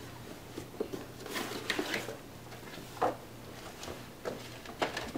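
Cardboard subscription box being opened and handled: scraping and rustling about a second and a half in, then a few short knocks near the end.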